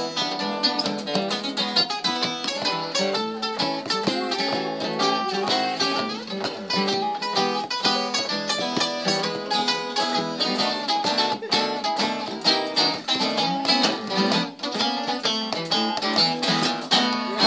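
Two acoustic guitars playing an instrumental blues break: a guitar solo over a strummed rhythm guitar.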